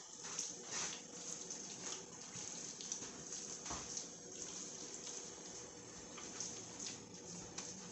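Hands kneading and mixing ground chicken mince in a glass bowl: faint, irregular squishing.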